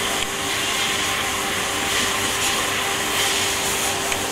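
Steady factory machinery noise: an even hiss with a constant mid-pitched hum running under it.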